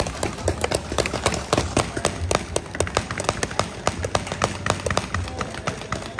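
Several game guns firing rapidly during a shootout match: irregular sharp pops and cracks, about four to six a second, overlapping from different shooters.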